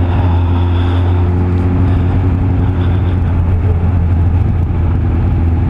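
Suzuki Bandit 600's inline-four engine running at a steady, low pitch while the motorcycle is ridden, with a haze of wind and road noise.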